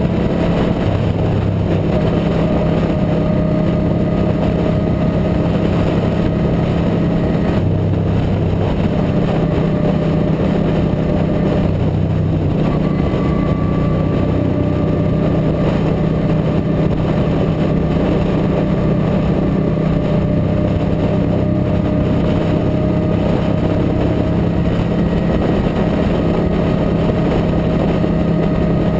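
Motorcycle engine running steadily at highway cruising speed, with a low, even drone and no change in pace, mixed with wind and road noise.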